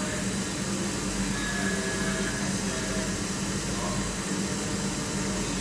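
Steady background hum with an even hiss, unchanging throughout.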